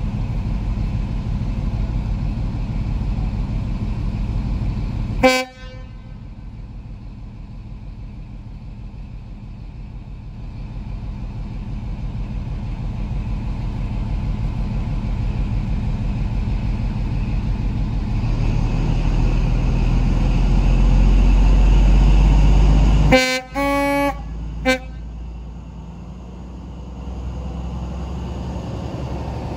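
Class 43 HST power car's diesel engine running, then powering up and growing much louder over several seconds as the train starts off. The horn gives a very short toot about five seconds in. Near the end it gives a two-tone blast of about a second, followed by a brief toot.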